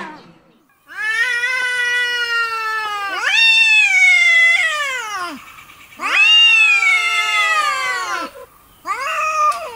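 Cat yowling in a face-off with another cat: long, drawn-out caterwauling wails, four in a row, each lasting one to two seconds and dropping in pitch as it ends.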